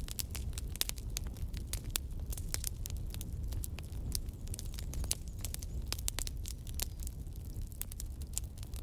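Wood campfire crackling, with many irregular sharp pops and snaps from the burning logs over a low rumble.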